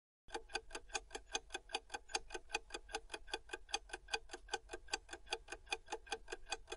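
Clock-ticking countdown sound effect: fast, even ticks, about five a second, starting just after the beginning.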